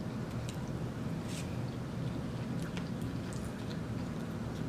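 Eating sounds from a seafood boil mukbang: a scattering of faint clicks and smacks from chewing and handling shellfish, over a steady low hum.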